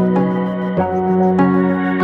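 Soft new-age background music: held pitched notes changing every second or so.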